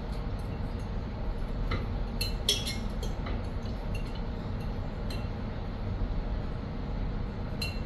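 Light clinks of a utensil against a glass jar as candied jalapeno slices are taken out. The clinks come in a quick cluster about two to three seconds in, with one more near the end.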